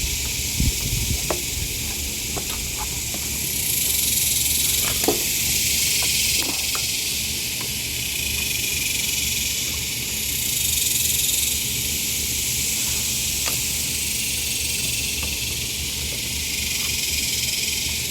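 A steady high-pitched hiss that swells and fades twice, with a few faint small clicks scattered through it.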